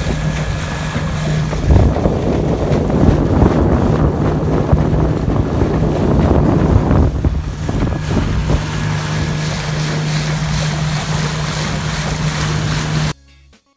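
Small outboard motor running steadily at speed, pushing an aluminium fishing boat across choppy water. Heavy wind buffets the microphone and water slaps and splashes against the hull. It all cuts off abruptly near the end.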